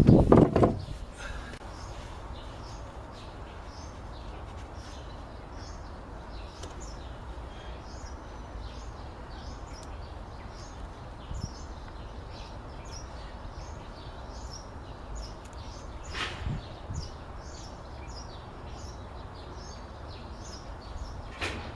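Small birds chirping repeatedly over a steady low outdoor rumble. A loud noisy clatter comes right at the start, and there are a couple of brief knocks later on.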